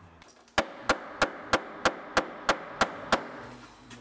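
Hammer knocking a tight-fitting wooden shelving unit into a window opening: about nine sharp, even taps, roughly three a second, starting about half a second in.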